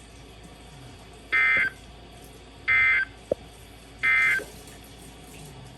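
Emergency Alert System end-of-message data bursts over NOAA Weather Radio: three short, buzzy digital tone bursts about a second and a third apart, signalling the end of the severe thunderstorm warning. A brief click falls between the second and third burst.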